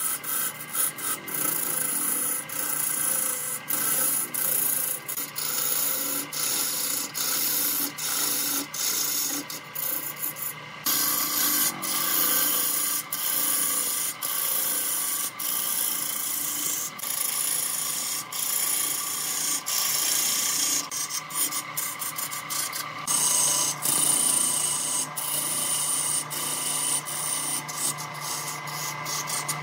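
A turning tool shaving the surface of a large wooden cylinder spinning on a homemade lathe, a steady scraping hiss with many brief breaks as the tool lifts off the wood. The lathe's electric motor hums steadily underneath.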